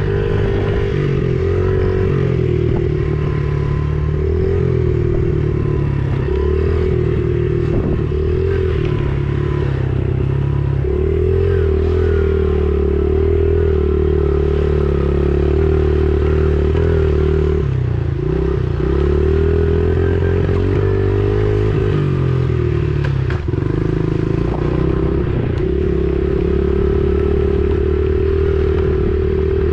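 Honda 70 dirt bike's small four-stroke single-cylinder engine running as it is ridden, its pitch rising and falling with the throttle. The engine note dips briefly twice, about two-thirds of the way in, and there are a few sharp knocks.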